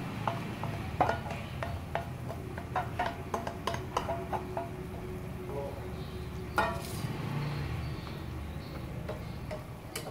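A wooden fork scraping and tapping a mashed squash and egg mixture out of a bowl into a frying pan, with many clinks and knocks of utensil on bowl and pan and one louder knock past the middle. Near the end a wooden spatula stirs the mixture in the pan.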